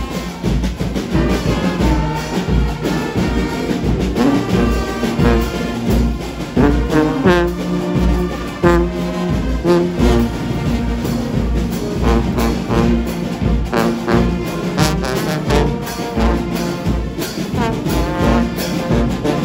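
Brass band playing, trombones and trumpets sounding held, layered notes over a steady low beat.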